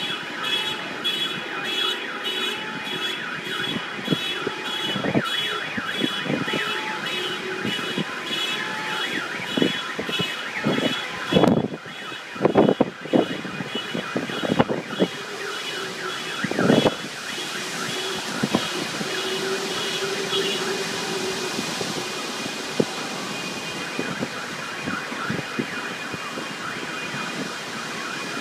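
Several car alarms going off at once: a fast-pulsing high electronic tone over warbling wails. A cluster of loud bumps comes in the middle. The pulsing stops about two-thirds of the way through, leaving a rushing hiss of wind.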